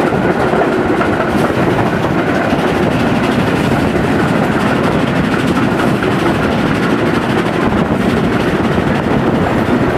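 Loud, steady running noise of two trains moving side by side at speed: wheels on the rails, and the ČSD class 556.0 2-10-0 steam locomotive 556.0506 working alongside the coach.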